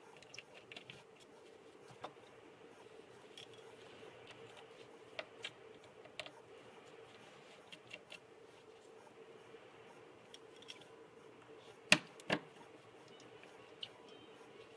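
Scattered small clicks and taps of hand tools on an iPhone 6 during screen disassembly, with two louder clicks about twelve seconds in, over a faint steady hum.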